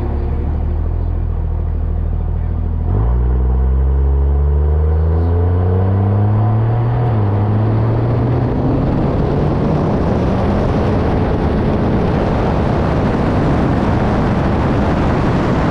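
Compound-turbocharged pickup truck accelerating hard under load. The engine pitch drops at a gear change about three seconds in and climbs again, with a smaller dip near seven seconds. After that a loud rough rushing noise builds over the engine, as in a rolling burnout with the rear tires spinning.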